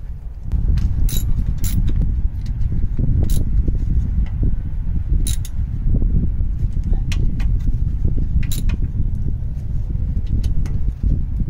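Scattered sharp metallic clicks and clinks of parts and bolts being handled at a van's rear hub, over a loud low rumble that starts about half a second in.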